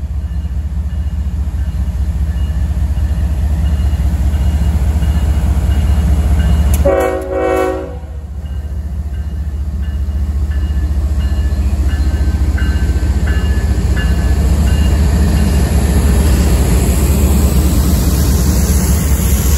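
CSX diesel freight locomotives passing close by, their engines running with a deep steady rumble. About seven seconds in, a short horn blast lasts about a second.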